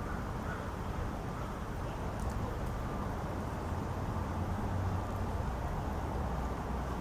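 Steady low outdoor background rumble with no distinct event: street ambience with wind and distant traffic noise, no siren sounding yet.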